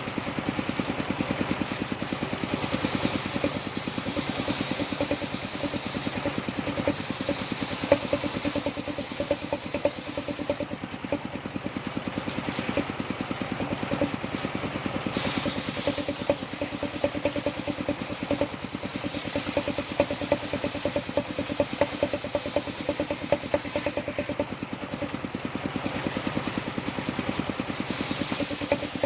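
Engine of a wood-sawing machine running steadily at an even speed, with a rapid, regular firing beat.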